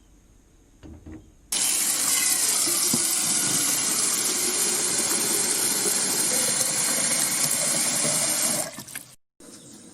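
Water running steadily from a tap, starting suddenly about a second and a half in and stopping shortly before the end.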